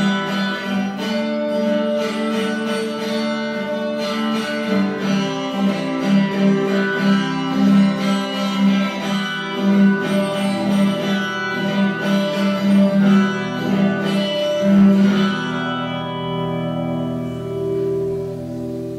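Instrumental music with quick repeated plucked notes over held tones. About fifteen seconds in it settles into sustained notes that slowly fade.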